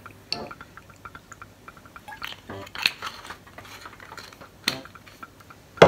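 Olive oil bottle being handled over a ceramic plate of asparagus as oil is drizzled on: a run of light clicks and ticks, with a few sharper knocks.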